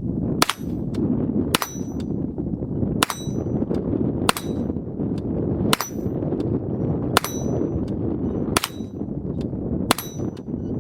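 Chiappa M4-22 semi-automatic .22 LR rifle firing eight evenly paced shots, about one every second and a half, each followed by the ring of a steel target being hit. Steady wind noise on the microphone underneath.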